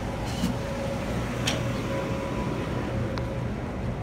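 Steady low electrical hum with a faint constant whine from the Set F1 heritage red electric train standing at the platform, with a few faint clicks.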